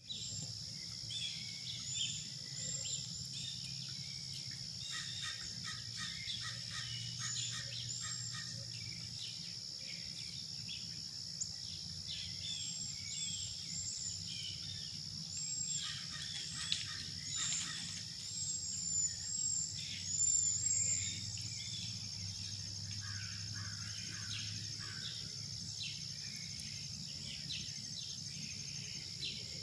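Outdoor ambience of songbirds chirping in short, scattered calls, over a steady high-pitched insect drone and a low background hum.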